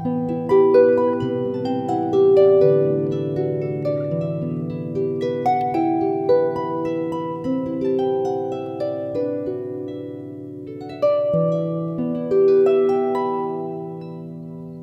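Background music: a gentle harp-like plucked melody over a low held bass note, fading down near the end.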